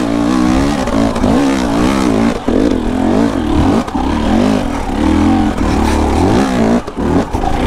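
KTM enduro dirt bike engine being ridden hard, its pitch rising and falling over and over as the throttle is worked.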